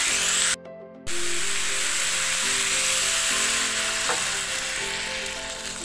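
Sliced bitter melon sizzling as it fries in a pan with a little added water, under background music with held notes. The sound cuts out for about half a second shortly after the start.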